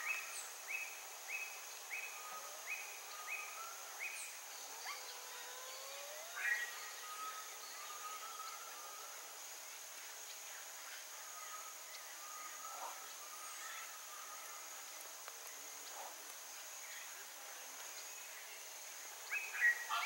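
Background birds calling over a steady, high insect buzz: a run of short falling notes repeated about twice a second for the first four seconds, then scattered faint calls. Just before the end, a loud, harsh chorus of Chaco chachalaca calls starts.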